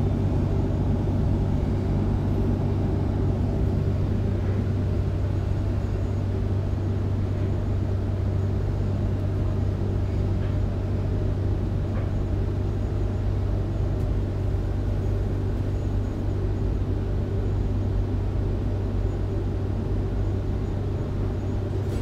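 Steady low hum of a Sydney Trains double-deck electric train's interior as it slows into a station and stands at the platform, with a constant low drone underneath.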